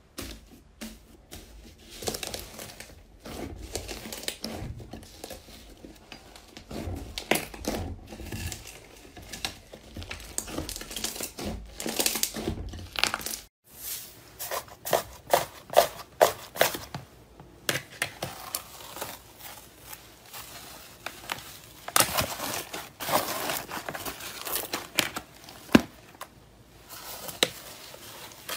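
Hands pressing and kneading slime at close range: the gold foil sheets on a pink slime crinkle and crackle under the fingers, then, after a brief break, a blue slime sunk in clear slime gives dense crackling with many sharp little pops.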